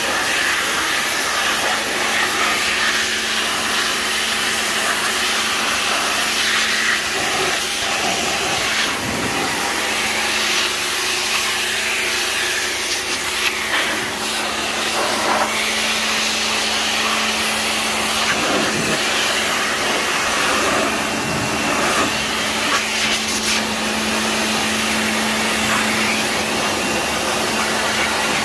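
Pressure washer running steadily: the pump motor's constant hum under the loud hiss of the water jet spattering on the engine and the metal of the engine bay.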